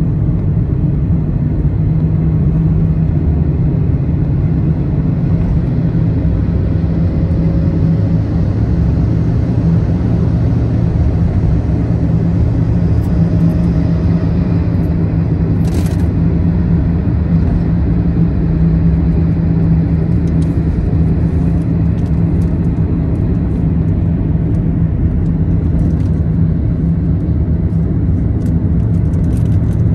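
Steady low road and engine noise of a car at highway speed, heard from inside the cabin, with a short hiss about halfway through.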